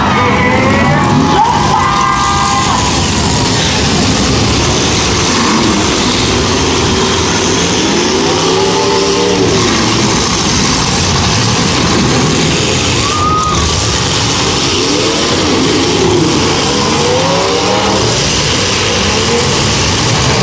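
Several demolition derby cars' engines revving up and down over one another, with the steady din of a grandstand crowd underneath.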